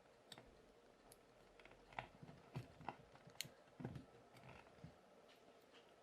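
Faint, irregular clicks and taps of small plastic parts being handled and fitted together as a toy combination dial lock is reassembled.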